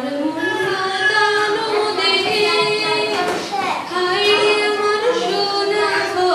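Two young girls singing a Bengali song together into handheld microphones, with long held notes.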